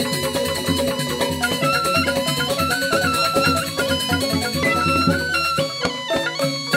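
Balinese joged gamelan music: fast, dense struck notes with a sustained melody line held above them.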